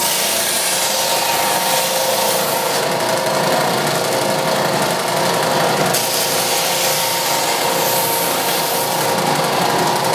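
Benchtop power sander running with a steady whine while a split bamboo strip is pressed against it, sanding the raised node down flush to help the strip split cleanly.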